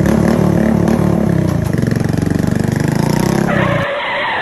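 Motorbike engine running close by with a rapid, even beat, cutting off suddenly near the end.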